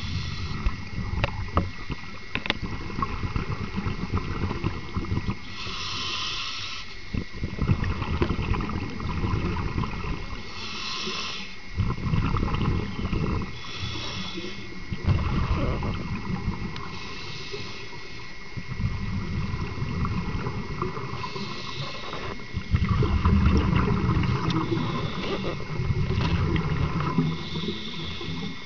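Scuba diver breathing through a regulator underwater. A short hiss of inhalation comes about every four seconds, each followed by a longer low rumble of exhaled bubbles.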